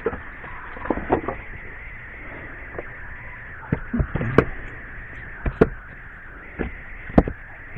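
Split firewood pieces knocking against each other as they are set onto a woodpile: a series of sharp, short wooden knocks at irregular intervals.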